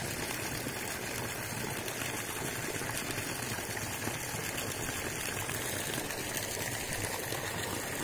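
Steady rush of a water jet splashing into a fish pond.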